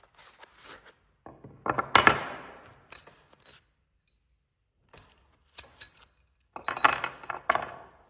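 Small hard tools clinking and knocking as they are handled and set down, with two clusters of clicks, one about two seconds in and another near the end.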